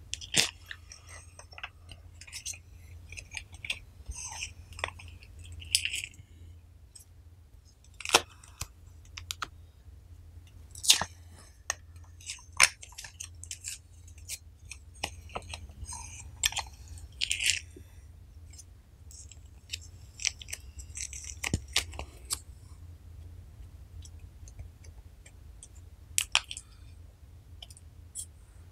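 Sticky slime being squeezed through and worked in a plastic garlic press, with wet crackles, squishes and sharp clicks at irregular intervals.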